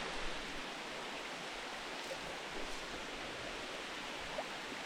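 Steady hiss of heavy rain mixed with running creek water.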